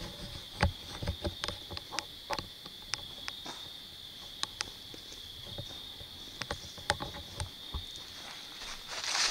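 A steady, high insect trill from night insects, with scattered sharp crackles and snaps of dry leaves and twigs underfoot in the leaf litter.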